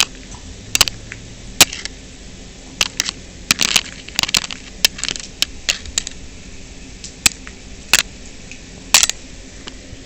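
Irregular sharp clicks, taps and crinkles of cardboard and mounting brackets being handled and fitted by hand, about fifteen separate sounds at uneven spacing.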